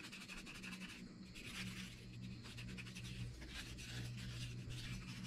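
Fine 600-grit sandpaper rubbed by hand inside the bowl of a cherry wood spoon, in repeated soft swishing strokes, over a faint steady low hum.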